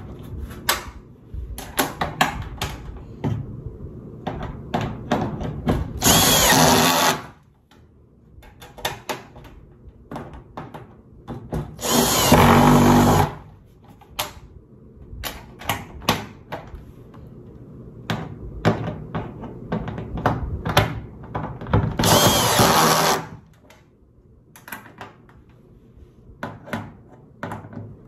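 Cordless drill driving screws into the corrugated metal panels of a raised garden bed: three runs of about a second each, with short clicks and light knocks in between.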